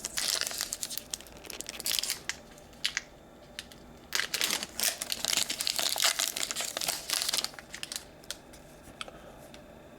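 A trading-card pack wrapper crinkling and tearing as a hockey card pack is opened and handled. It comes in two main stretches of rustling, with small clicks between.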